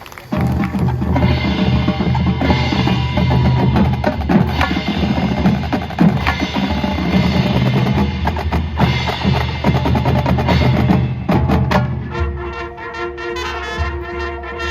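Marching band drumline playing a loud percussion feature of snare and bass drums, with rolls and rapid strokes. It starts right after a brief break. Near the end the drums drop back and the band comes in with held chords.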